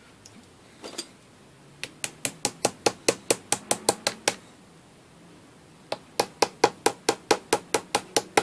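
Small ball-peen hammer tapping the front cap back onto a lock cylinder held in a bench vise, metal on metal. There are two runs of quick, light, even taps, about four or five a second, with a short pause between.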